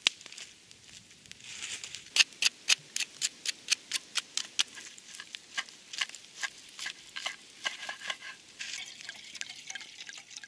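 Wood fire crackling, with sharp irregular pops, several a second, that start about two seconds in.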